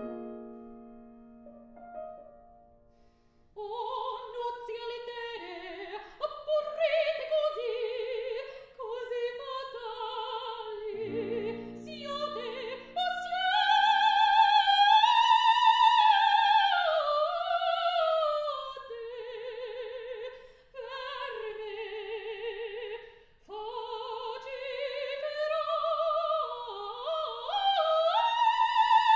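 Lyric coloratura soprano singing an operatic aria with grand piano accompaniment. A piano chord dies away, then the voice enters about three seconds in with wide vibrato, rising to long high notes held over soft piano chords; the loudest note comes near the end.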